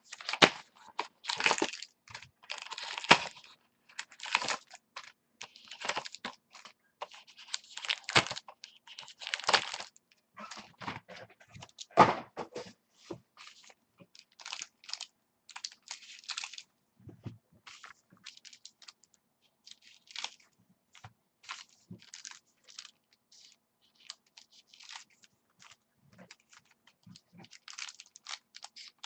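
Trading-card packaging being opened by hand: the cardboard of a book-style box and the pack wrappers rustling, crinkling and tearing, with scissors cutting and cards being handled, in irregular bursts. It is busiest in the first dozen seconds and sparser after.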